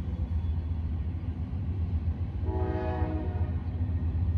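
Diesel freight locomotive air horn sounds one short, distant blast about two and a half seconds in, over a steady low rumble.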